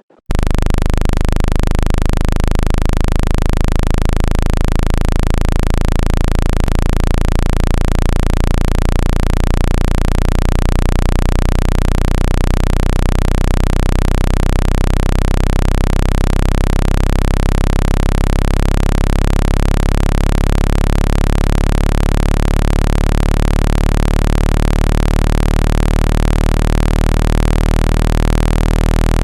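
Synthesized speaker water-eject sound: a loud, steady low-pitched tone of several low notes over an even hiss, starting abruptly and running on unchanged. It is meant to vibrate trapped water droplets out of a phone speaker's grille.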